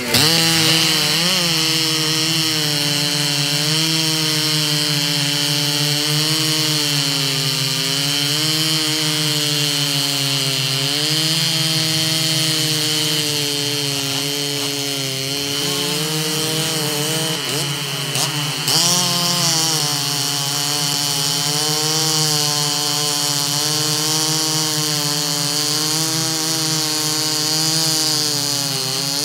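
Several chainsaws running flat out at once, ripping logs lengthwise in a post-rip race. The engines' pitch rises and sags as they bog in the cut and recover, with a few deeper dips along the way.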